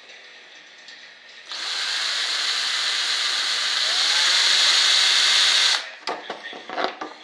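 Electric hand drill with a small bit, running for about four seconds and growing slightly louder as it bores a hinge pilot hole into the wooden block inside a model aircraft flap, then cutting off suddenly. A few light knocks and scrapes follow.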